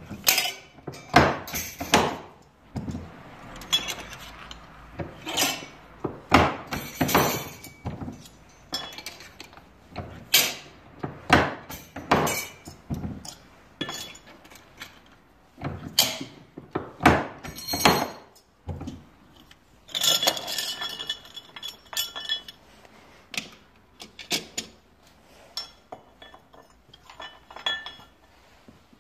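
Hand-operated Schlebach FHS roofing-clip machine being worked: irregular metallic clanks and clinks as the lever is swung and steel strip is bent and cut into standing-seam clips. The clanks stop just before the end.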